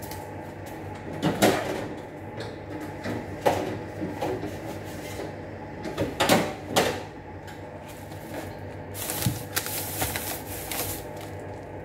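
Plastic grocery bags and packaging rustling and crinkling as items are handled and put away, with light knocks and clicks of things set down, over a faint steady hum.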